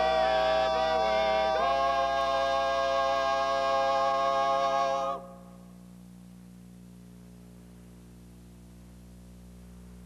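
A male barbershop-style quartet sings the last words and holds the final chord, which cuts off abruptly about five seconds in. A steady low electrical hum remains after it.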